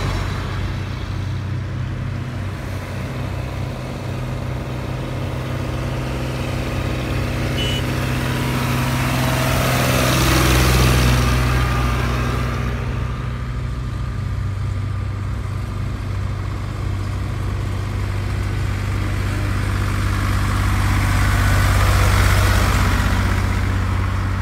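Fiat 540 DT and Hürlimann 361 tractors' diesel engines running as they drive past one after the other, with a steady engine note throughout. The first passes loudest about eleven seconds in, the second about twenty-two seconds in.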